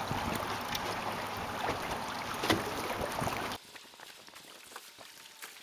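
Steady wind and water noise on an open boat, with a few light handling knocks. It drops off abruptly about three and a half seconds in to a much quieter background with scattered faint clicks.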